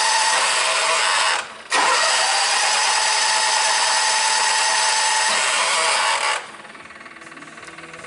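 Electric starter cranking a 1998 John Deere 6x4 Gator's Kawasaki FD620D engine without it starting: it stops briefly about one and a half seconds in, cranks again, and cuts off suddenly near the end. A crank-no-start that the technician puts down to a breathing fault of some type, with compression but no valve movement.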